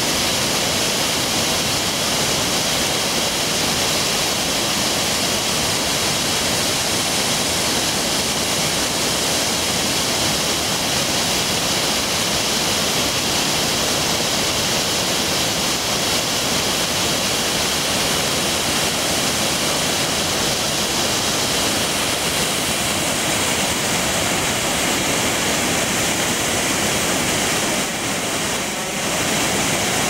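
The Stuibenfall, a large alpine waterfall, plunging and churning: a loud, steady rush of falling water that dips briefly near the end.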